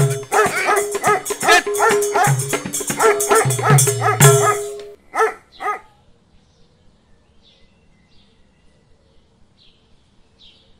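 Background music stops about five seconds in. Two dog barks half a second apart follow, then faint bird chirps.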